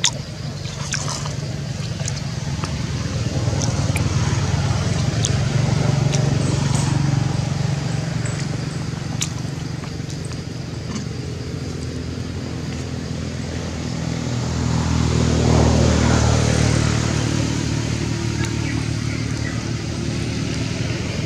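A motor vehicle's engine running steadily, growing louder about fifteen seconds in, with a few faint clicks scattered over it.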